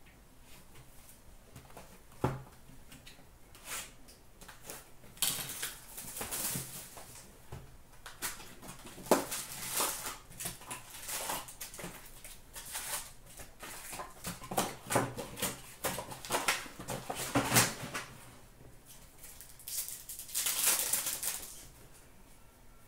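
Foil-wrapped hockey card packs and their cardboard box being handled: irregular crinkling, rustling and crackling of wrappers. A sharp knock comes about two seconds in, and a longer burst of crinkling comes near the end.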